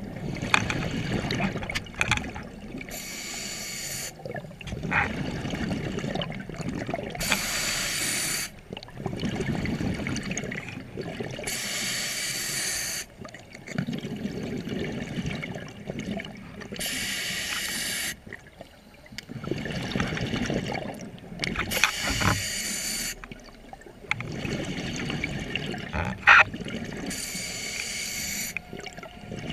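Scuba diver breathing through a regulator underwater: a hissing inhale about every four to five seconds, each followed by the low bubbling of the exhaled breath, about six breaths in all.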